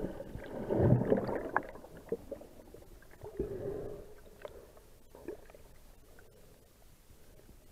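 Underwater sound of churning water and bubbles as a sea lion thrashes with a mola sunfish at the surface. It is loudest in the first two seconds, surges again about three and a half seconds in, then dies down to a faint hiss.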